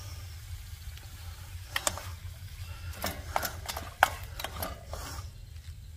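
Plastic spatula scraping and stirring scrambled eggs and deer sausage in a stainless steel frying pan. A run of short scrapes and taps starts about two seconds in, the loudest near four seconds, over a low steady rumble.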